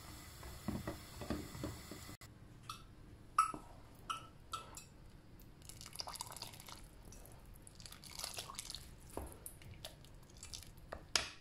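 A wooden ladle stirring thick pumpkin soup in a pot, lifting it and letting it pour and drip back, with soft wet splashes and a few light clicks of the ladle against the pot.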